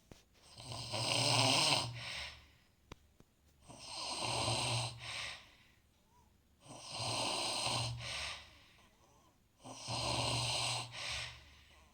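A sleeper snoring: four snores about three seconds apart, each lasting roughly a second and a half, with quiet gaps between.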